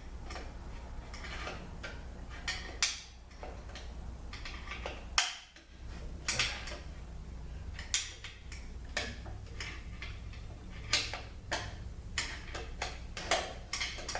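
Steel tools clicking and scraping against a snap ring and the aluminium case of a 200-4R automatic transmission as the ring is worked out of its groove: irregular sharp metallic clicks, the loudest about five seconds in, over a steady low hum.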